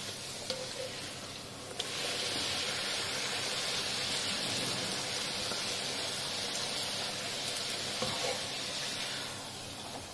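Water running steadily from a tap. It starts with a click about two seconds in and tapers off near the end.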